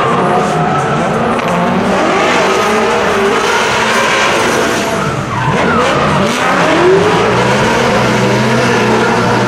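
Two drift cars sliding in a tandem drift, their engines running at high revs, with the pitch rising and falling as the throttle is worked, over the hiss and squeal of sliding tyres. About five seconds in, the revs drop briefly and then climb again.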